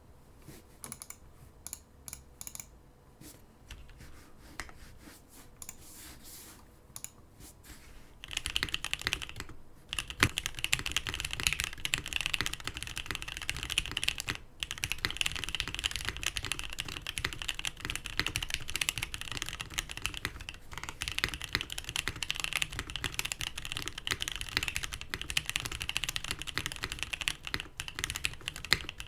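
Custom Frog TKL mechanical keyboard with an aluminium leafspring plate, lubed NK Black Dry linear switches and GMK ABS keycaps being typed on. There are a few scattered keystrokes at first, then from about eight seconds in, fast continuous typing that is louder.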